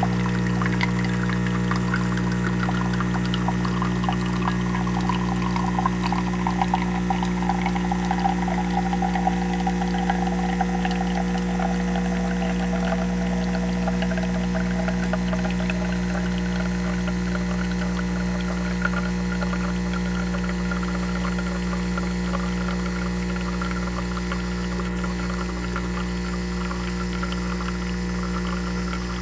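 Mr. Coffee One-Touch CoffeeHouse espresso machine running: a steady pump hum under liquid streaming and crackling. A higher, gurgling note slowly falls in pitch over the first half, then holds steady.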